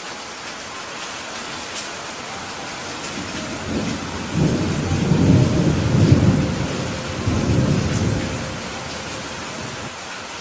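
Heavy rain falling steadily, with a low roll of soft thunder that builds about four seconds in, peaks midway and fades out about two seconds before the end.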